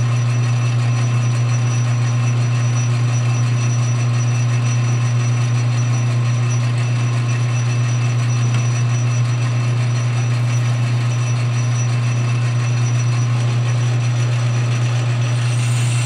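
Metal lathe running steadily while it takes a turning cut on a part: a constant low hum with a thin, steady high whine over it.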